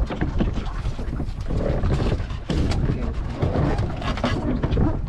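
Wind buffeting the action camera's microphone on an open boat at sea: a loud, uneven low rumble with crackle.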